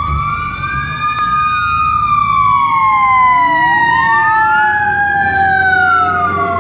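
Emergency vehicle sirens, at least two wailing at once, their pitches sliding slowly up and down and crossing each other; they grow louder about a second in.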